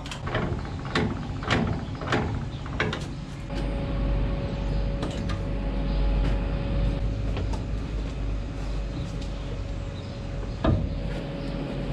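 A few sharp metal clicks and clanks as the mixer's PTO driveshaft and hitch are worked loose from the tractor. From about three and a half seconds in, a low steady rumble with a faint steady whine takes over, and one sharp knock comes near the end.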